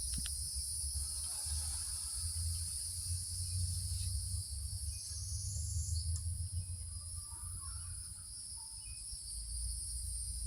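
Steady, high-pitched chorus of insects, with a low rumble underneath that fades for a second or two near the end and then returns. A few faint, scattered chirps come through over the insect chorus.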